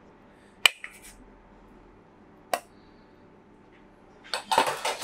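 Metal tongs and a stainless steel bowl clinking in a kitchen. There is a sharp click about half a second in, another at about two and a half seconds, then a quick run of clattering near the end.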